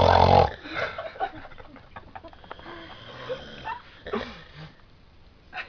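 A man snoring loudly in his sleep: one loud snore right at the start, then quieter breathing and a weaker snore about four seconds in.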